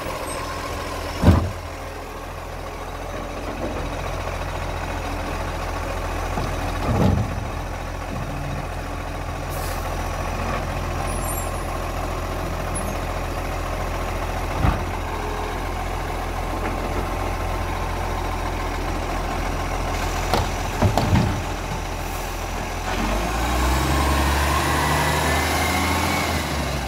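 Side-loading garbage truck's engine running steadily while its automated arm lifts and empties bins, with a few sharp knocks of bins against the arm and hopper. Near the end the engine grows louder and heavier.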